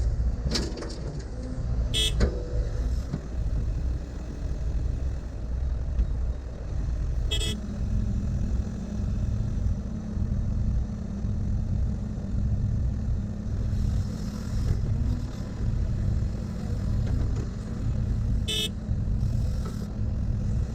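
Heavy diesel construction machine running and working under load, a continuous deep rumble that rises and falls. Its engine note changes about seven seconds in, and three short sharp sounds stand out.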